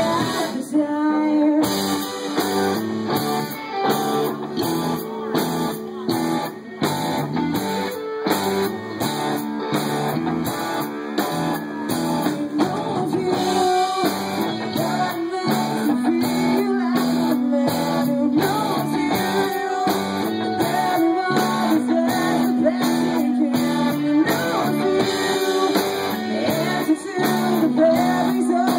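Live band playing, with guitar to the fore and a steady level throughout.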